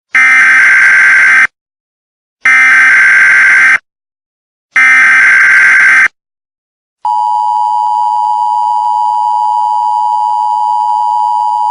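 Emergency Alert System tones: three identical harsh, buzzing data bursts of about a second and a half each, a second apart (the SAME header), then the steady two-tone attention signal starting about seven seconds in and holding.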